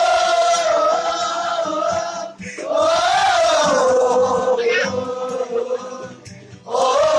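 A group of voices singing a chant-like song together in long, drawn-out phrases, with short breaths about two and a half seconds in and again near the end.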